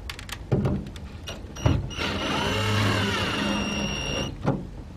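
20V cordless drill/driver running for about two seconds, its motor whine wavering under load as it drives a wire-terminal screw on a solar charge controller. A few knocks come before it and one just after.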